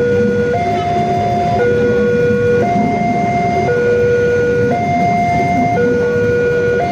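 Railway level-crossing warning alarm sounding its two-tone signal, a lower and a higher tone taking turns about once a second, warning that a train is crossing. Under it, the rumble of passenger coaches rolling past on the track.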